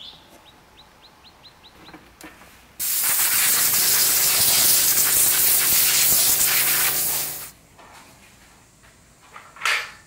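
A loud, steady rush of air blown through the grid of an electric bug zapper to clear out dead insects. It starts abruptly about three seconds in, runs for about four and a half seconds with a faint motor hum underneath, then dies away.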